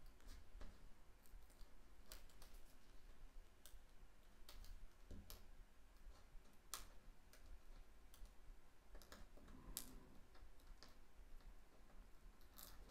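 Near silence, broken by faint, irregular small clicks and paper handling from fingers working a small paper die-cut and its adhesive on a cutting mat.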